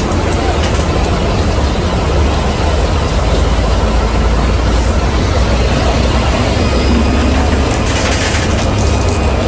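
Heavy truck running with a steady, loud, low rumble.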